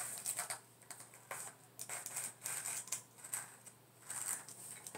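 Quiet, irregular rustling strokes and light clicks of a flat iron and a round bristle brush being worked through a section of hair to straighten it.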